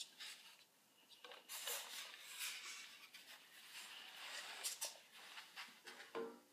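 Faint rustling and light knocks of a wooden chair with a cloth back being turned over and handled.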